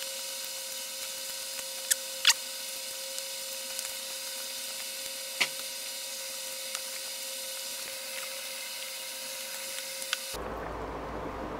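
A few short, sharp eating sounds, the loudest about two seconds in, as chicken curry is eaten by hand. They sit over a steady hum and hiss that changes abruptly near the end at a cut.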